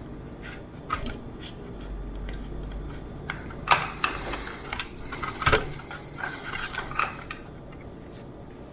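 Scattered light clicks, taps and rustles of hands working a fabric shirt onto a small 3D printed plastic figure, busiest in the middle few seconds.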